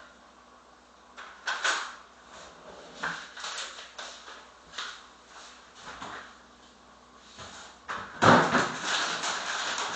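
Kitchen doors and drawers being opened and closed while things are put away: scattered knocks and clicks, with a louder, busier stretch near the end.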